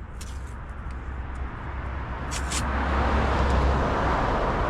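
Road traffic noise with a low rumble, swelling about two seconds in, with a few short sharp clicks.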